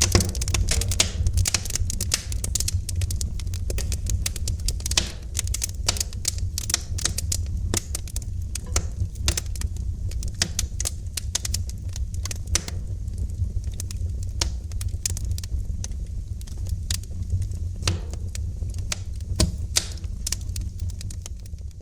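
Wood fire crackling in a fireplace: a dense run of irregular pops and snaps over a steady low rumble, dying down near the end.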